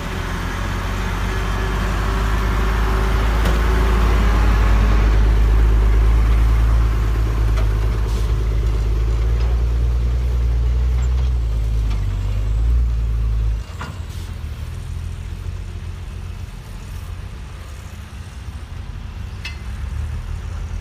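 Diesel engine of a loaded Hyundai dump truck running under load as it drives across a soft dirt field, with a steady low rumble. It grows louder over the first few seconds, then drops off suddenly about two-thirds of the way through, leaving a quieter engine rumble.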